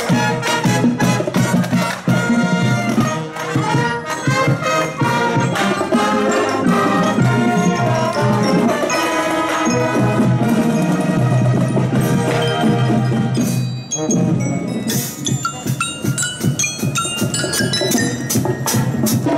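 Children's marching band playing on the march: drums and brass, trombones among them. In the last few seconds the sound thins out and glockenspiel notes ring out on top.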